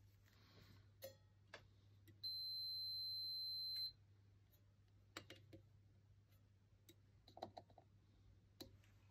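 Multimeter continuity beeper giving one steady high beep lasting about a second and a half, the signal of a closed circuit while the probes test the rewired lamp's plug. Small clicks and taps of the test probes being handled against the plug pins and lamp holder come before and after it.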